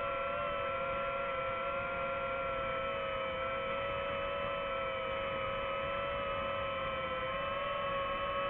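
Quadcopter drone motors and propellers whining steadily, several pitches held together that waver slightly.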